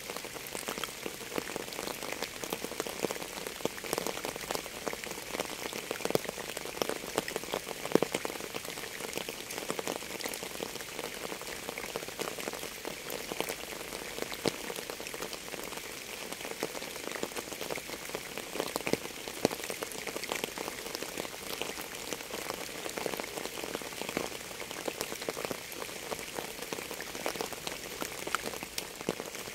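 Steady rain falling, thick with the small clicks of individual drops, with a few louder drops standing out now and then.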